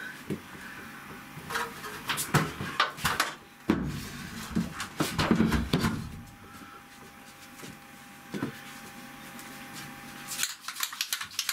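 Irregular knocks, clunks and clicks of objects being handled and set down, with a few heavier thuds in the first half. A faint steady hum runs for a few seconds and cuts off abruptly, followed by a quick run of clicks near the end.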